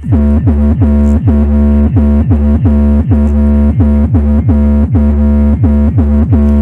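Electronic bass music played loud through a car audio system with subwoofers: a deep bass tone with a note that slides sharply downward about three times a second.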